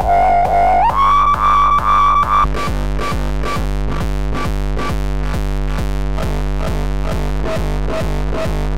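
Distorted hardstyle kick drum, a TR-909 kick run through FabFilter Volcano 3's resonant filters, looping at a steady tempo. Its ringing pitch glides higher about a second in and changes character again about two and a half seconds in, as the filter routing is switched.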